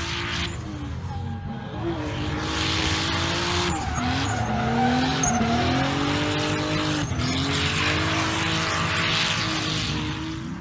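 Car engine revving up and down over the hiss of tyres squealing and skidding, as in drifting. The engine pitch rises and falls several times.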